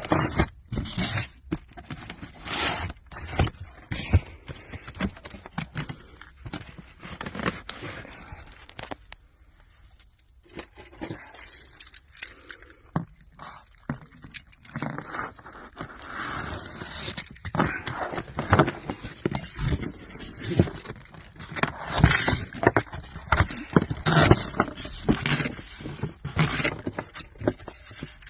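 Irregular knocks, scrapes and rustling from heavy cardboard firework cakes being handled and moved, with a quieter stretch around the middle.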